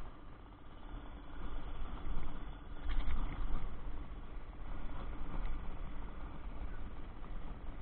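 A steady low rumble with a faint hum above it, and a couple of brief knocks two to three seconds in.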